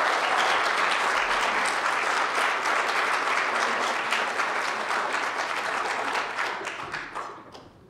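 Audience applauding in welcome, the clapping thinning out and dying away over the last couple of seconds.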